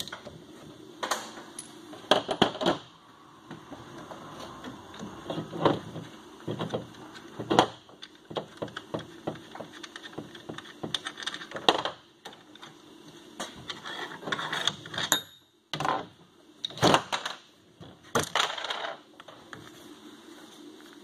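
Irregular metallic clinks, taps and knocks of hand tools and mounting hardware as a snowmobile's factory front shock is unbolted and worked out of the skid frame.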